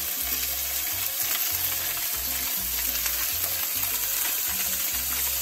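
Striped bass fillets sizzling steadily in olive oil on a preheated nonstick pan: an even frying hiss as the fish starts to cook.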